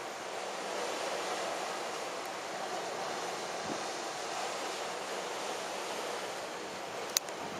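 Steady wash of small waves breaking on a sandy beach, with a single sharp click near the end.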